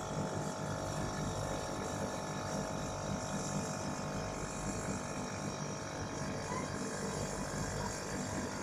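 Copeland refrigeration compressor in a ZXL 750 condensing unit running steadily: an even humming drone with several steady tones and a rough buzz underneath. It is the abnormal running noise that the technician is checking as a problem.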